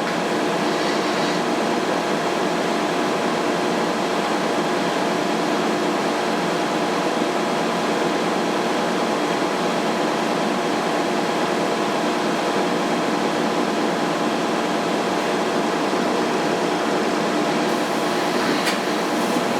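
Steady hum of shop machinery running, with several steady tones held at an even level and no change throughout.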